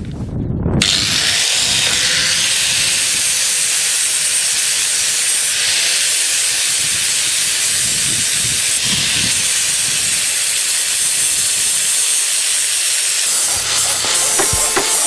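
Handheld electric angle grinder spinning up about a second in, then grinding steadily on the welded steel of a makeshift exhaust clamp made from perforated strip. A few sharp clicks come near the end.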